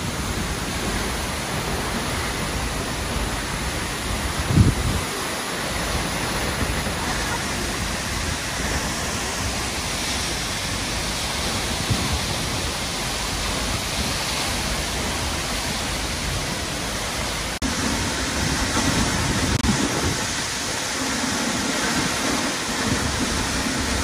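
Seljalandsfoss waterfall's steady roar of falling water and spray, close by. A brief low thump comes about four and a half seconds in, and after an abrupt break about two-thirds of the way through the roar is a little deeper.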